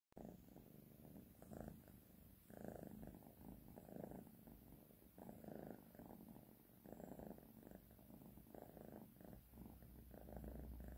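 Abyssinian cat purring softly while being stroked, the purr swelling and fading with each breath about every second and a half.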